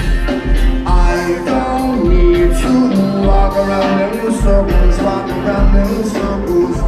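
Live rock band playing, with a deep bass line pulsing in a steady rhythm.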